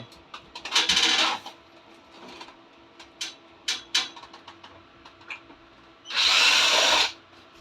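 Power drill running in two short bursts, the second about six seconds in and a little longer, with sharp metallic clicks between them, as the battery connections are undone.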